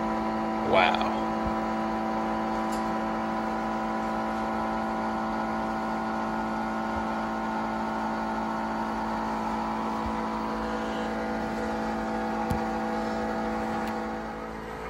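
Electric pump motor running with a steady hum.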